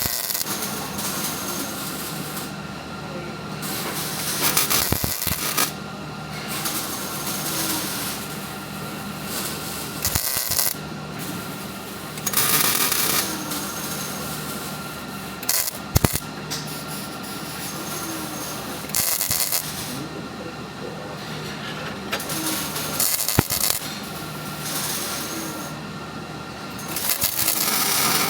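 Wire-feed (MIG) welder arc crackling in short bursts of one to two seconds, several times, as practice beads are laid, over a steady low hum.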